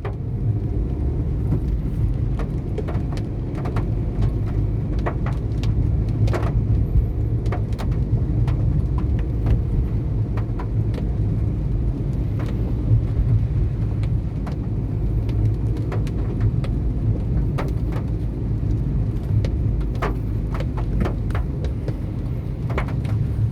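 Steady low rumble of a vehicle on the move, with many scattered short rattles and knocks.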